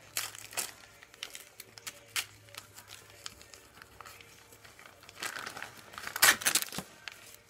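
Paper crinkling and rustling as a wrapped Christmas ornament is unwrapped by hand, with a brief tearing sound. The loudest crinkling comes about five to seven seconds in.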